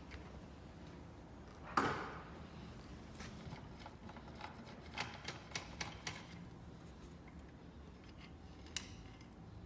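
Ratchet wrench clicking in short runs as a bolt on an engine's timing end is worked, with one sharp metallic clunk about two seconds in and a last click near the end.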